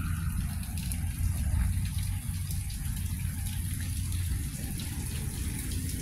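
Wind buffeting the microphone outdoors: a steady, uneven low rumble with a faint high hiss above it.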